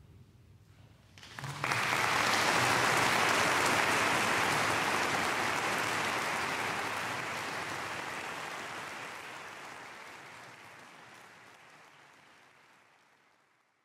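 Audience applause, breaking out about a second and a half in after the last sung chord dies away, then slowly fading out.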